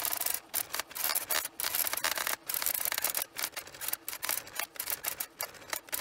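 Brother AX-25 electronic typewriter's daisy wheel mechanism printing a line of characters: a quick, irregular run of short strikes and carriage movements with brief pauses between them.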